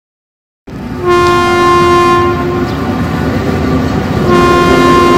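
Diesel locomotive's multi-tone horn sounding two long blasts a few seconds apart, over the steady rumble of the approaching train. The sound cuts in suddenly under a second in.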